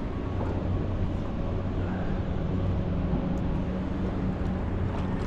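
Small boat's motor running steadily, a low hum with a second, higher hum growing stronger about two seconds in, over wind and water noise.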